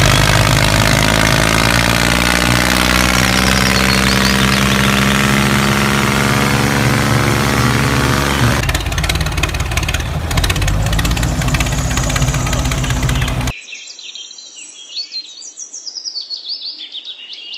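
Tractor engine running steadily. About 13 seconds in it cuts off suddenly, leaving birds chirping.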